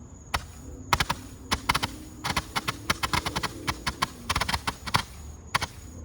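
Consumer firework fountain crackling: a rapid, irregular run of sharp pops and cracks that thickens in the middle and dies away near the end.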